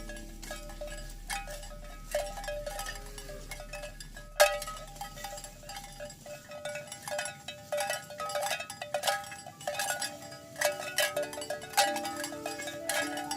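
Cowbells on a walking herd of cattle, clanking irregularly and ringing on, with one sharp knock about four seconds in.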